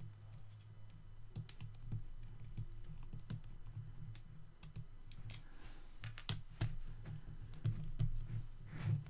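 Scattered small plastic clicks and taps as fingers work a bar off a Tamiya M07 Concept RC car chassis, with a steady low hum underneath.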